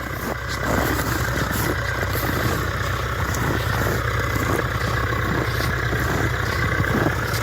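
Engine idling steadily, a low even hum, with faint irregular crunching that fits footsteps in snow.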